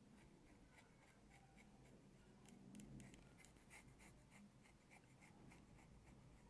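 Faint, quick scraping strokes of a dermaplaning blade drawn across the skin of the chin and upper lip, shaving off fine facial hair, a few strokes a second.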